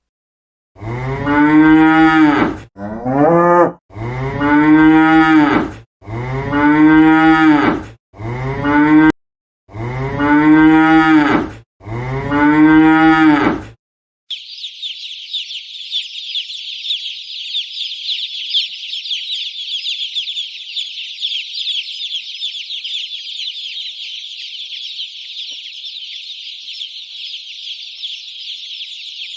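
Cattle mooing: seven loud, low calls, each rising and then falling in pitch, one after another for the first half. After that, a steady high-pitched chorus of many small voices takes over.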